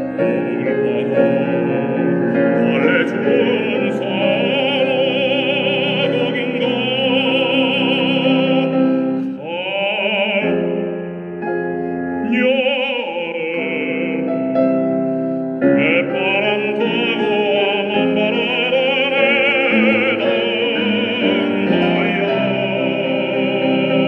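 A baritone singing a Korean art song (gagok) in a classical, operatic style with vibrato, over instrumental accompaniment. The voice pauses briefly between phrases near the middle.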